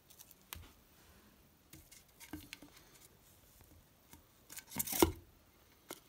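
Light rustles and taps from handling a 50 mm reloadable firework shell and its fuse, then a louder knock with clicks about five seconds in as the paper shell is pushed down and seats in the cardboard mortar tube.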